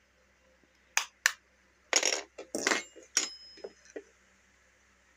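Plastic shell of a USB mobile charger adapter being prised open by hand: two sharp clicks about a second in, then a run of clicks and clatters as the casing comes apart.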